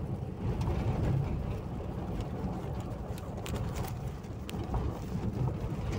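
Car in motion heard from inside the cabin: a steady low rumble of engine and tyres on the road, with scattered small clicks and rattles.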